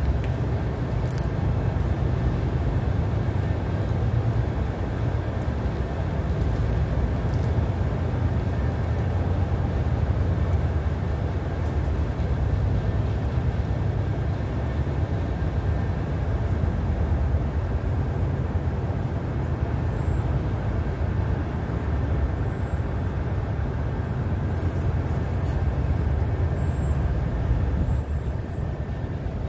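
Tugboat's diesel engine running steadily, a continuous deep, low sound.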